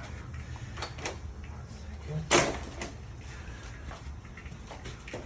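Clicks and knocks of hardware being worked into a door during a mortise lock installation, with one louder knock a little over two seconds in.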